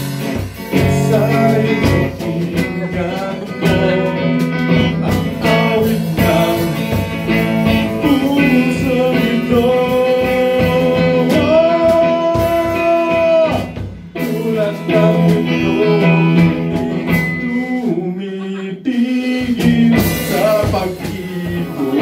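A man singing a ballad live over electric guitar played through an amplifier, with a long held sung note about halfway through.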